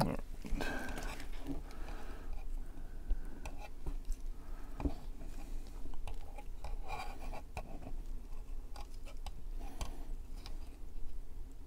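Gloved hands handling a plastic model car body while laying down thin masking tape and trimming it with a hobby knife: scattered small clicks, scratches and rustles as the tape is pressed down and cut.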